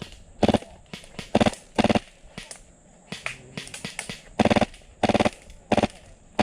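Airsoft light machine gun running on high-pressure air, firing about seven short full-auto bursts of rapid clicking shots, with a few fainter bursts between.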